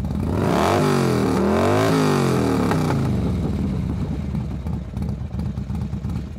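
Can-Am Ryker three-wheeler's engine revved once, its pitch rising for about a second and falling back, then idling with a steady pulse.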